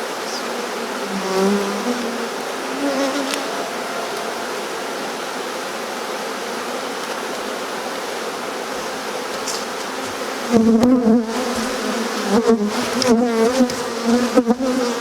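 A honeybee swarm buzzing: a steady hum of many bees, with single buzzes wavering in pitch over it. The buzzing grows louder and more uneven from about ten seconds in.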